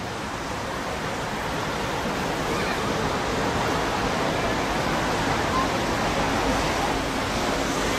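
Steady rushing outdoor noise with faint voices of a crowd mixed in.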